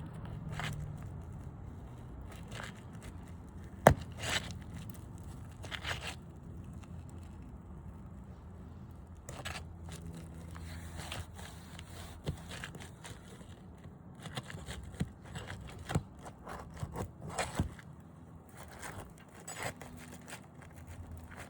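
Asphalt roof shingles being pried loose: intermittent scraping and crackling as sealed shingles are separated, with scattered sharp clicks and one sharp knock about four seconds in, over a low steady hum.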